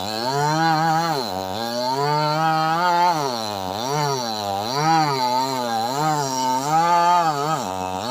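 Two-stroke chainsaw cutting through very hard wood, its engine pitch repeatedly sagging as the chain bites and climbing back, about once a second, with deeper bogs about one and a half seconds in and near the end.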